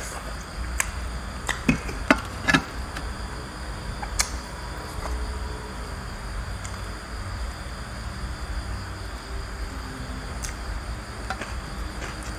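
Steady high trill of night insects, with a handful of sharp clicks and smacks from eating by hand, most of them in the first few seconds and a couple more near the end.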